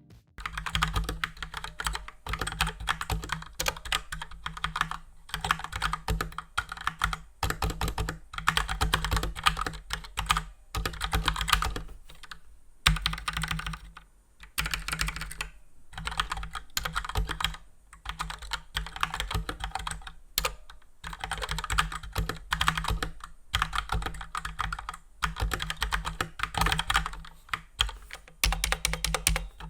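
Typing on a Cooler Master CK530 tenkeyless mechanical keyboard with Gateron Red linear switches: fast runs of key clacks in bursts of a few seconds, broken by short pauses.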